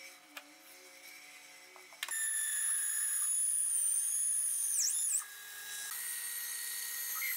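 Bandsaw running and cutting through a wooden board, a steady high whine that comes in suddenly about two seconds in. About five seconds in the whine briefly dips in pitch and recovers, then carries on a little quieter.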